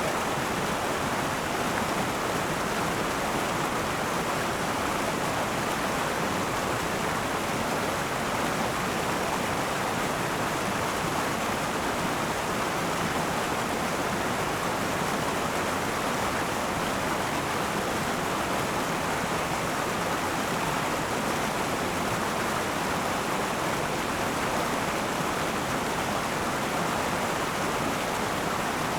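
River water rushing over rocks in a steady, even flow.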